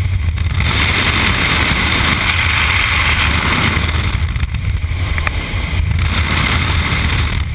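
Steady engine drone of a biplane jump aircraft in flight, with loud wind rushing past its open door, briefly dipping a few times.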